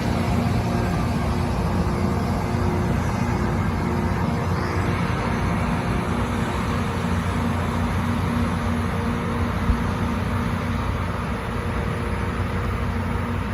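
Loram rail grinder train running on the track: a steady, loud diesel drone under a broad rushing noise, easing slightly near the end.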